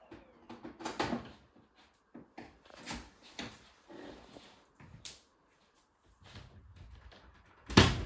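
Scattered knocks and clatters from handling a Bosch BGS21X320 bagless canister vacuum cleaner, its wand and hose, with no motor running. One loud clunk comes near the end.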